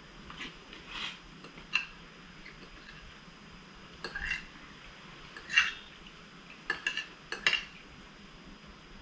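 A fork clinking and scraping on a dinner plate in scattered, separate taps, with a quick cluster of several clinks about seven seconds in.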